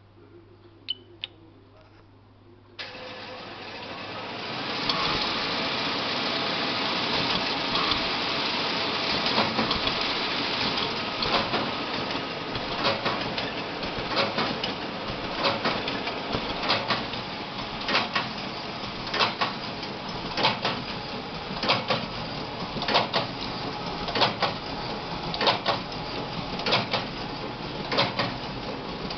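Bourg BST10 sheet collating tower starting up after two clicks of its panel buttons. Its motors come up to a steady whirring run over about two seconds, then the sheet-feed mechanism clacks regularly about once every 1.25 seconds as it cycles.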